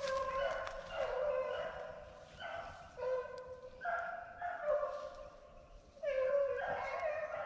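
Hunting beagles baying, one long drawn-out bawl after another with a short break about six seconds in, the voice a beagle pack gives while running a rabbit's trail.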